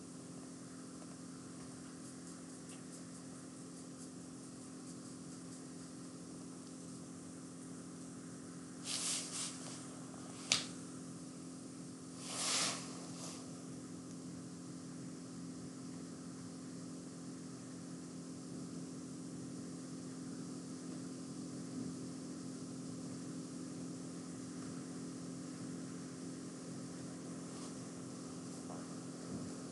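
Faint steady low hum and hiss of room tone, with a few brief soft noises and one sharp click about ten seconds in.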